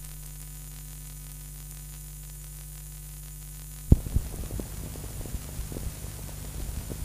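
Steady electrical mains hum with hiss from an old archival radio recording. About four seconds in there is a sharp click, followed by irregular crackling with small ticks.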